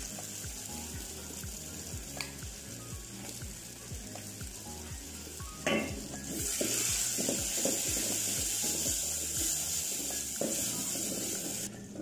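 Chopped vegetables and tomato paste frying in an aluminium pot and being stirred with a wooden spoon. The sizzle grows louder about halfway in, just after a single sharp knock. Background music with a steady beat plays underneath.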